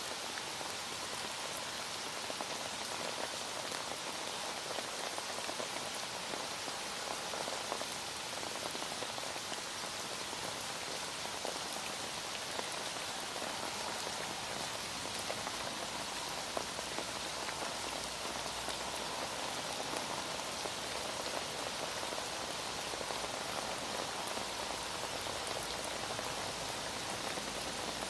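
Heavy rain falling steadily, a dense patter of drops on a surface.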